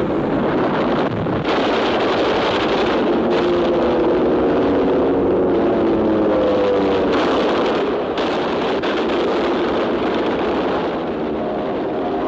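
Propeller aircraft engines droning steadily, their pitch slowly wavering, over a dense rushing roar.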